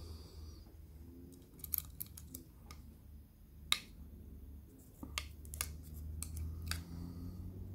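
Scattered small sharp clicks and taps of a Samsung Galaxy A8 (2018) frame and its replacement LCD screen being handled and fitted together by hand. The loudest click comes about halfway through, over a low steady hum.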